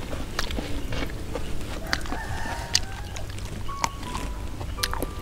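Domestic chickens clucking, with a rooster crowing, mixed with scattered light clicks and taps.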